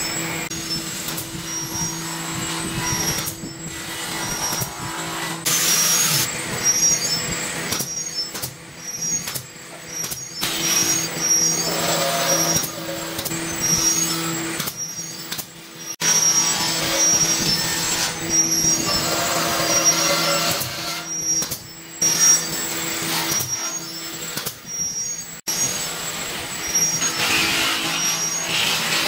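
Workshop tool sounds as wooden strips are fastened: sharp shots of a pneumatic nail gun and short runs of a handheld power drill, with knocks of wood being handled, over a steady hum.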